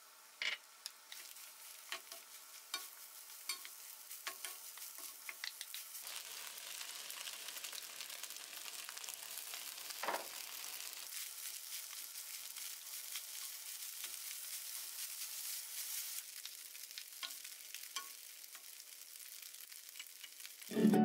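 Egg, rice and cooked instant noodles sizzling in a hot nonstick pan as a wooden spoon stirs and scrapes them, with scattered light taps of the spoon on the pan. The sizzle swells about a third of the way in and stays up until near the end.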